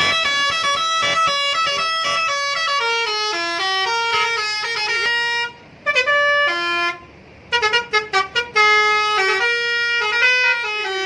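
A bus's telolet multi-tone air horn playing a melody of stepped notes, breaking off twice about halfway through and sounding a run of quick short blasts before the tune picks up again.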